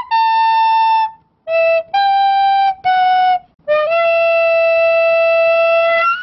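Intro jingle: a short tune on a flute-like wind instrument, four short notes followed by one long held note lasting about two and a half seconds.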